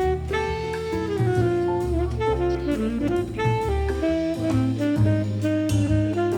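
Background jazz music: a saxophone-like lead melody over a walking bass and drum kit.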